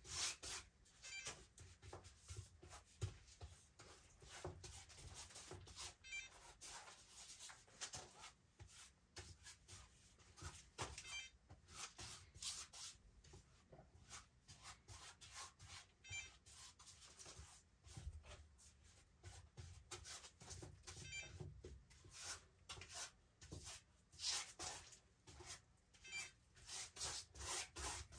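Faint rubbing and swishing of a hand spreading a wet, slippery coat over a stretched canvas, in many short strokes.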